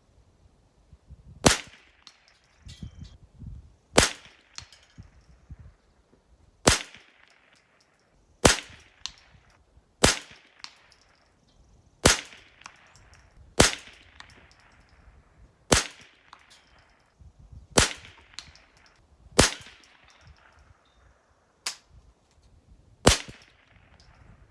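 Rifle shots fired at a slow, steady pace: about a dozen sharp reports roughly two seconds apart, each trailing off briefly.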